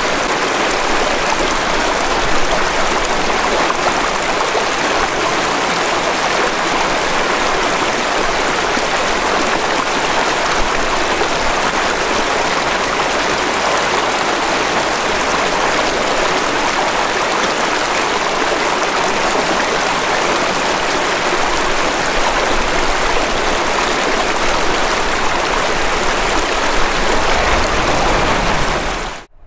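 Small rocky stream rushing and splashing over stones, a steady close-up water sound that cuts off suddenly near the end.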